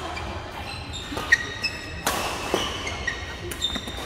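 Badminton rally: several sharp cracks of rackets striking a shuttlecock, the loudest just over a second in. Short squeaks of court shoes on the mat run among them, over the hum of play on other courts in a large hall.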